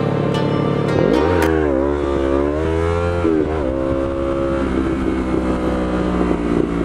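Yamaha MT-03 motorcycle engine accelerating under the rider. Its pitch drops about a second in, then climbs, drops again around the middle at a shift, and holds steady near the end.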